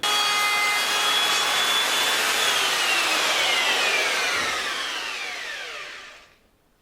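Handheld electric wood router running at full speed, trimming a sawn edge true against a guide fence. About two seconds in it is switched off, and its whine falls steadily in pitch as the motor spins down over about four seconds.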